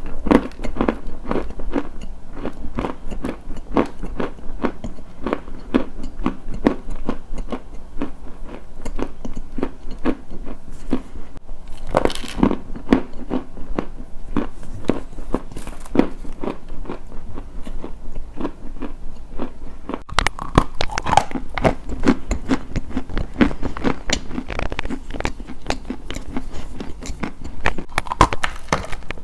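Close-up crunching and chewing of a crisp, crunchy food, with many sharp irregular crunches in quick succession.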